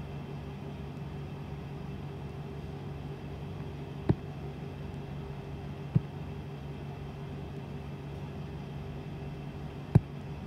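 Steady low electrical-sounding hum over a faint hiss, broken by three short sharp taps about four, six and ten seconds in.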